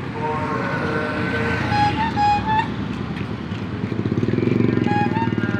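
Street traffic noise with a motor vehicle engine running close by. Its fast, even pulsing grows louder from about four seconds in, and brief pitched tones sound around two seconds in.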